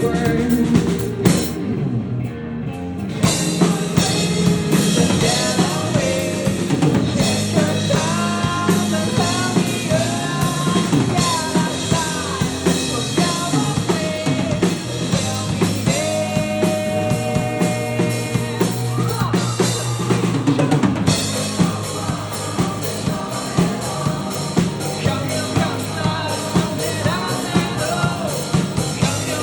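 Live rock band playing an instrumental passage, with a drum kit driving a steady beat under the full band. The top end thins out briefly about two seconds in.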